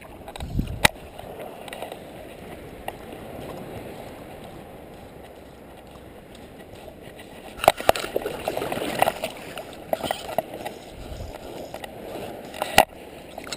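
Shallow sea water sloshing and lapping around a wading angler's legs, busier and splashier in the second half as fly line is stripped and the rod is lifted to cast. Three sharp knocks from handling the rod, reel and camera: about a second in, just past halfway, and shortly before the end.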